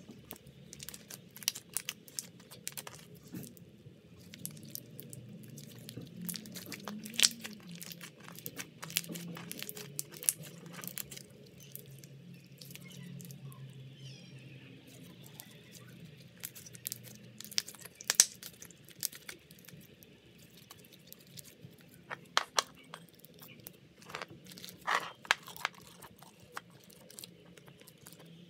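Clear glue slime packed with small sponge cubes (jelly cube slime) being stretched and squeezed by hand, giving irregular crunchy crackles and sharp little pops, with a few louder pops about 7 s, 18 s and 25 s in.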